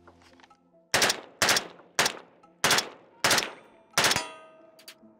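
Colt M16A1 rifle firing six 5.56 mm shots, one every half second or so, each with a quick echoing tail. A lingering metallic ring follows the last shot, about four seconds in.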